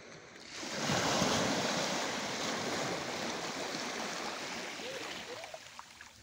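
Shallow sea water washing in: a rush that swells about a second in and then slowly dies away.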